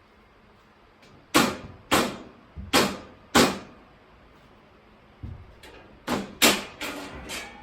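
Mallet blows on the steel shelving frame and brackets: four sharp, ringing knocks about half a second apart, then a quicker run of knocks near the end.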